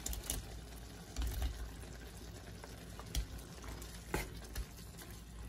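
Meatballs tipped off a plate into a pan of boiling tomato sauce and stirred in with a wooden spatula: a few soft knocks and scrapes over the steady bubbling of the sauce.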